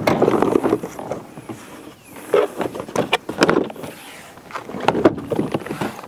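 A Honda Odyssey's plastic inner door trim panel being slid down onto the front door and pressed into position: irregular rubbing and scraping of plastic against the door, with several sharp knocks and clicks.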